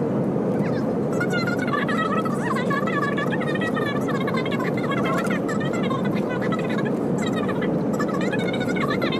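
Steady drone of an airliner's cabin in flight. From about a second in, a high, wavering, warbling sound rises and falls above it again and again.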